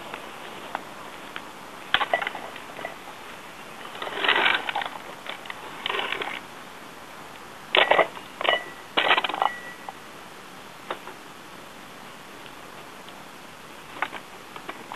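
Irregular wooden knocks, clunks and scrapes from a homemade 2x4 floating arm trebuchet being handled and its throwing arm pulled down to set it. There is a cluster of sharper knocks with a brief squeak in the middle, then it goes quieter.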